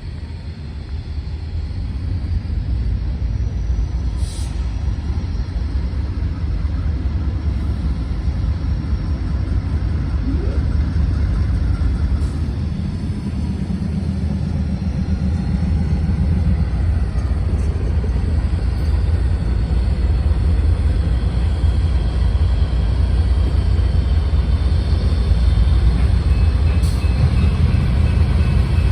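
Deep rumble of approaching diesel freight locomotives, growing gradually louder.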